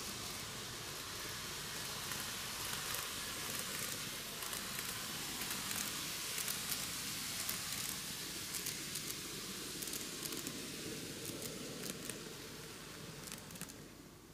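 Microace N-gauge model of the Meitetsu KiHa 8000 series six-car set running on TOMIX track: a faint steady hiss of running with many light clicks of wheels over the rail joints, falling away near the end.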